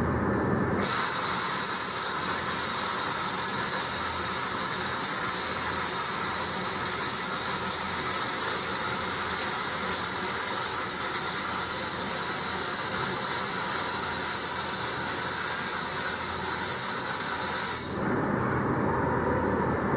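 Robotic welding arc burning: a loud, steady hiss starts abruptly about a second in, holds for some seventeen seconds, then cuts off sharply. A quieter steady machine hum is heard before and after it.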